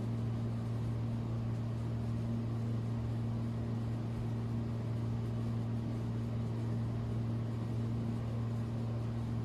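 Steady low electrical hum with a faint hiss, unchanging throughout; no other sound stands out.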